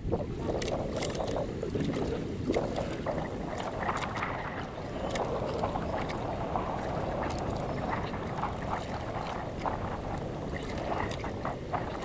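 Wind buffeting the microphone and sea water lapping against the hull of a small outrigger fishing boat at rest, a steady rushing noise with scattered light clicks and knocks.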